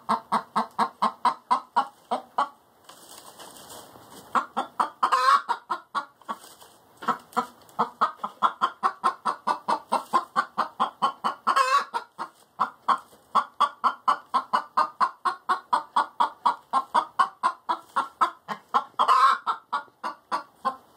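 Domestic hen singing her egg song: a fast, steady run of clucks, about four a second, broken three times by a louder drawn-out squawk, about five, twelve and nineteen seconds in. The clucking pauses briefly about three seconds in.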